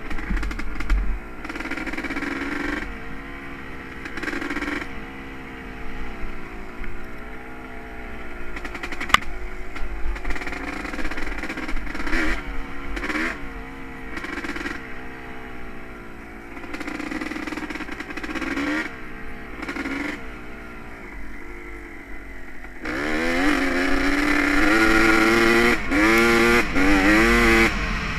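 Honda CR250R's 250cc single-cylinder two-stroke engine running under a rider, its pitch rising and falling as the throttle opens and closes. Near the end it gets louder with repeated hard revs.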